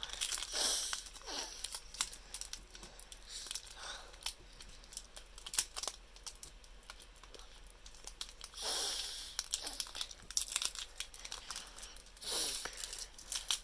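A foil Pokémon booster pack wrapper being torn open by hand: several bursts of tearing and crinkling, with small clicks and crackles between them.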